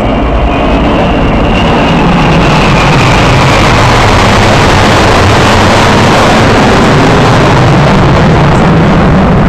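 Jet engine noise from a low formation flypast of a Tu-160 strategic bomber and an Il-78 tanker with escorting fighters. It builds to a loud, steady rush in the first second, and a high whine falls in pitch between about one and three seconds in.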